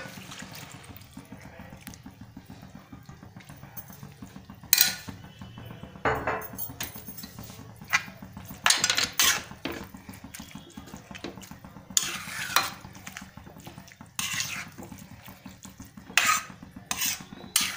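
A metal spatula scrapes and clanks against a metal kadhai as grated carrots and milk are stirred, in irregular strokes over a low steady hum.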